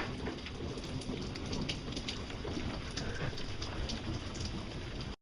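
Steady outdoor background noise: an even hiss with a low rumble and scattered faint ticks. The loud unexplained noise is no longer heard.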